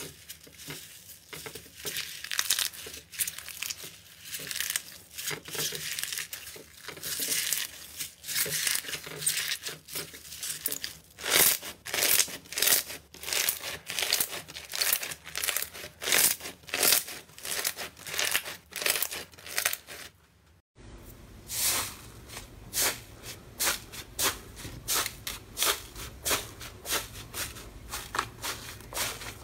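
Hands kneading and squeezing floam, slime packed with tiny foam beads, giving a dense, crisp crackling and popping. About 21 s in it cuts to fingers pressing into thick orange slime, with crackly squishes about twice a second.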